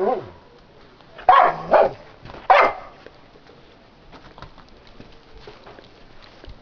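Samoyed barking: one bark at the start, two quick barks about a second later and a last one about two and a half seconds in, followed by faint light ticks.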